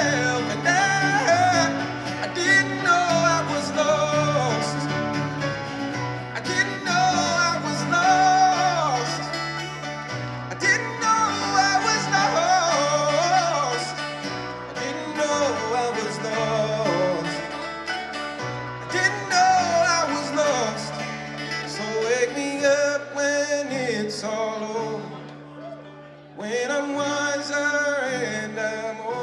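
Live band music: guitar and bass chords with a voice singing a melody without words. The music drops briefly near the end and then comes back in.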